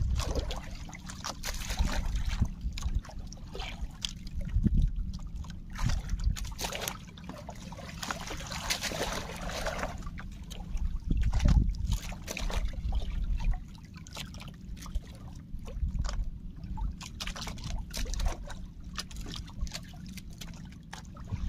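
Water sloshing and trickling around a small fishing boat at sea, with irregular splashes and a denser stretch of splashing about halfway through.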